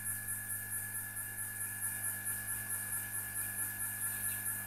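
Steady electrical hum with a high whine over it and a faint, even pulsing. No distinct sound of the desoldering work stands out.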